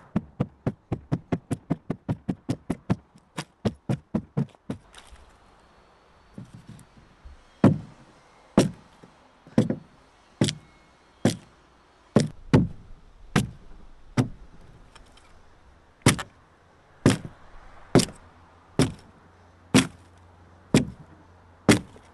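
A hand tool chopping into the wood of a dugout canoe hull: a quick run of light strikes, about five a second, for the first five seconds, then heavier single blows about once a second.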